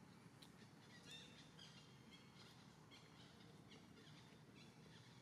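Near silence with faint, short high chirps scattered through it, about two a second, over a low steady hum.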